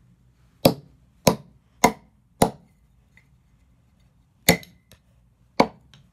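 A door wedge hammered down on a LEGO plastic piece: six sharp knocks, four in quick succession about half a second apart, then two more after a pause. The piece is not breaking.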